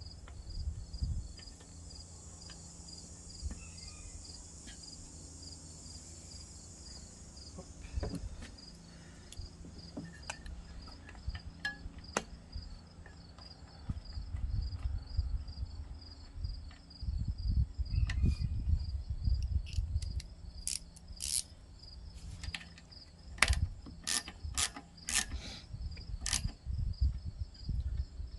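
Small hand-tool clicks and knocks on metal as a lawnmower carburetor is refitted, with a run of sharp clicks near the end. Crickets chirp steadily throughout.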